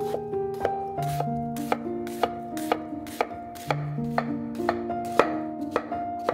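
Large kitchen knife slicing half an onion on a wooden cutting board: a quick, irregular run of crisp taps as the blade cuts through and meets the board, about three a second.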